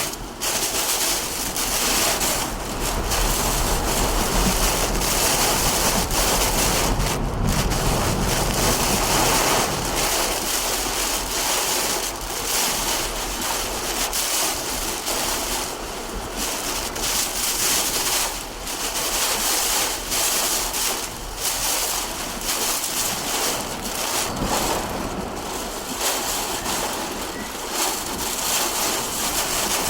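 Hurricane Helene's wind and heavy rain as a loud, steady rush that swells and dips in gusts. Wind buffets the microphone with a low rumble, strongest in the first several seconds.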